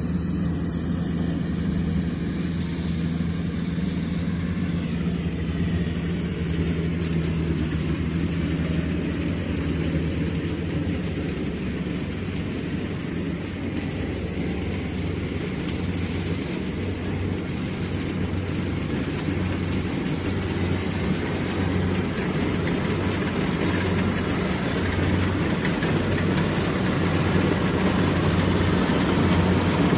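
Diesel engine and threshing machinery of a rice combine harvester running steadily while it cuts lodged rice in soft, muddy ground, growing louder near the end as the machine comes closer.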